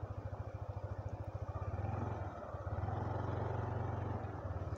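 Yamaha Aerox V2 scooter's single-cylinder engine running at low revs with a steady pulse, then opening up to a steadier, louder drone under throttle about two seconds in, easing off briefly twice.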